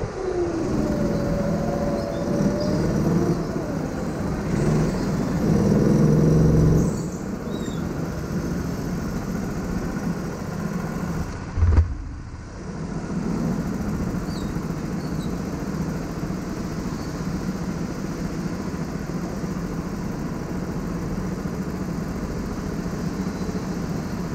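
Onboard sound of a rental go-kart lapping, its motor note falling and rising with the throttle through the corners and louder on a stretch a few seconds in. A short sharp knock comes just before halfway.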